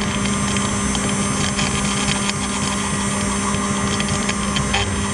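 CNC engraving machine running, its spindle cutting a design into a metal plate: a constant steady hum over a continuous hiss.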